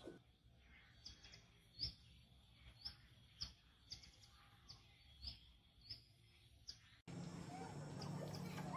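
Faint bird chirping: short high chirps repeated every half second or so. About seven seconds in, the sound cuts to a louder background with a low hum.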